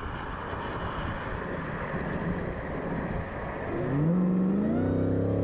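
Dodge Challenger Hellcat Redeye's supercharged V8 running at speed under wind and road noise. About four seconds in, the engine note rises as the car accelerates, then holds at a higher, steadier pitch.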